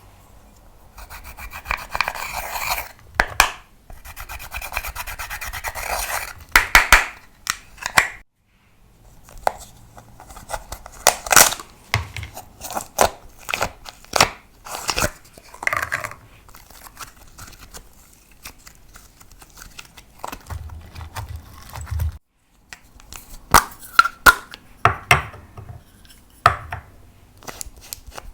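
Slime being worked and mixed by hand. It gives long stretches of dense crackly rasping, then a run of sharp sticky clicks and pops as it is pressed and pulled, with brief pauses between.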